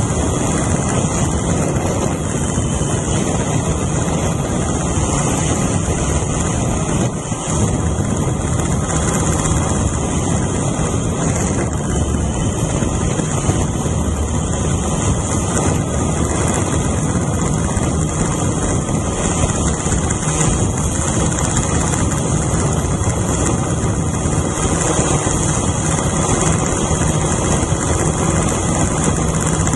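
Drone's motors and propellers running steadily in flight, recorded close up by a camera mounted on the drone itself. The sound is a constant high hiss over a low hum, with no change in pitch or loudness.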